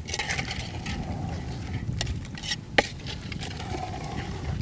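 Metal spatula stirring and scraping masala-coated chicken pieces in a metal cooking pot, with sharp clinks of metal on the pot, the loudest a little under three seconds in.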